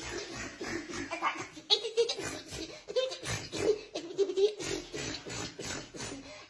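Laughter: a voice breaking into short, repeated, pitched bursts of laughing.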